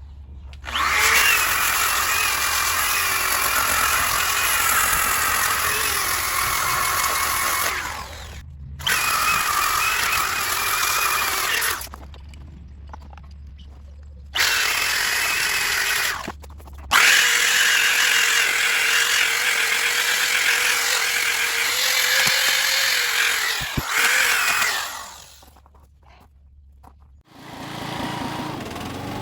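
Electric power sander running on a wooden slab in four stretches of several seconds each, with short pauses when it is switched off or lifted.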